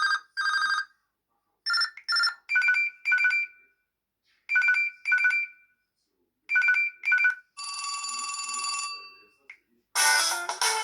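LG Optimus L5 E455 smartphone playing a telephone-style ringtone: pairs of short trilling electronic rings with silent gaps between them, then a buzzy held tone. About ten seconds in, a musical ringtone with guitar begins.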